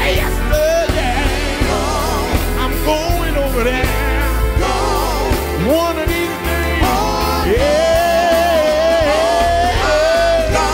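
Male gospel quartet singing live with a band of electric guitar and drums, voices sliding between notes over a steady bass line. One long held sung note runs through the second half.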